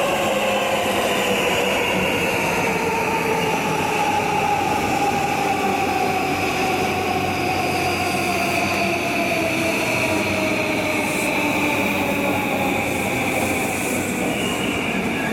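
JR East E235 series Yamanote Line electric train pulling into the station as it slows. Its inverter-driven traction motors whine in several tones that slowly fall in pitch, over the steady rumble of wheels on the rails.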